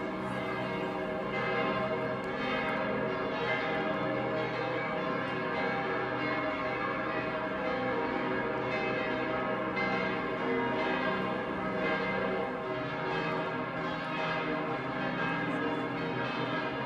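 Church bells from several churches ringing together across the city, a dense, continuous overlapping peal with no pause.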